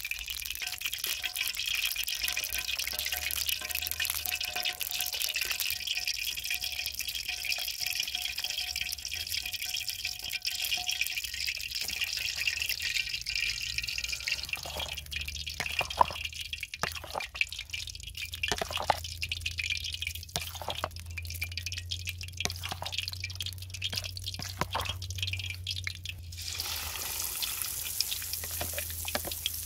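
Oil in a wok over a wood fire hissing steadily as it heats, then a stretch of irregular wet drips and clicks. About three-quarters of the way through, a brighter sizzle begins as batter-coated boiled eggs fry in the hot oil.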